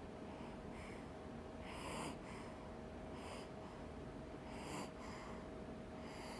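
A one-month-old baby snoring in sleep: short, noisy, snuffly breaths every second or so, the loudest about two seconds in.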